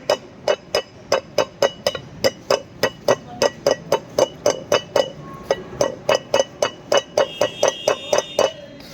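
Steady hammering on metal, about four sharp ringing strikes a second: a flywheel pilot bearing being driven into the flywheel.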